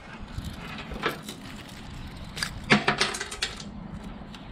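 A few light clicks and taps of hand tools being handled against sheet metal, the loudest a short cluster a little under three seconds in.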